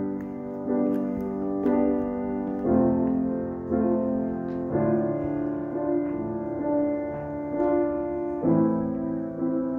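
Piano playing a slow intro of sustained chords, a new chord struck about once a second.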